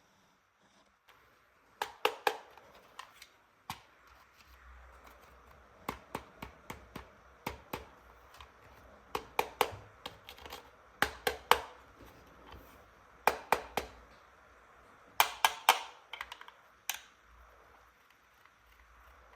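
Hard plastic toy parts being handled, clicking and tapping together in quick clusters of sharp clicks every second or two.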